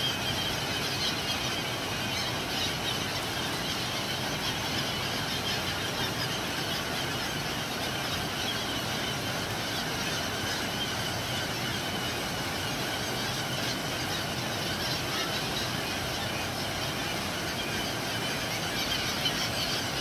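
Dense chorus of many gulls calling over one another, high-pitched and unbroken, over the steady rush of churning water.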